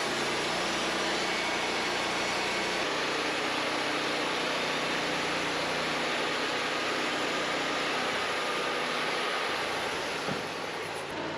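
Portable band sawmill running steadily, its engine and band blade sawing through a pine log. The sound eases off a little near the end, with a short knock.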